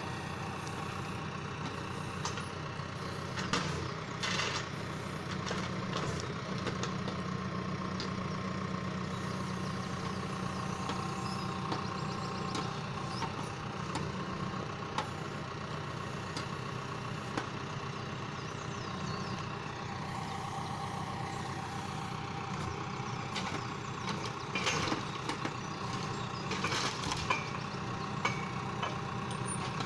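John Deere 6115M tractor's diesel engine running steadily as it works a timber crane loading logs onto a forestry trailer. A few short knocks, mostly near the start and again near the end, come from the logs.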